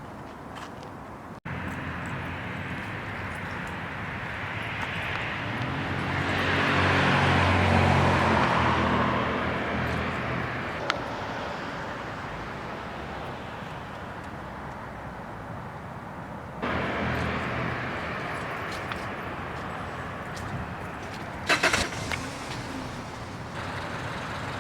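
Outdoor traffic noise, with a motor vehicle passing that grows louder and fades, loudest about eight seconds in. A few sharp clicks come near the end.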